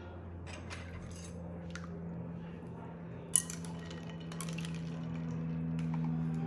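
Plastic potato ricer squeezed by hand, pressing pandan batter into strands that drop into a bowl of ice water: scattered light clicks and clinks, with one sharp click a little over three seconds in. A steady low hum runs underneath.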